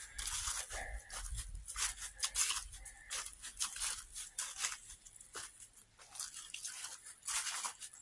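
Footsteps crunching through dry fallen leaves, a run of short crackling steps.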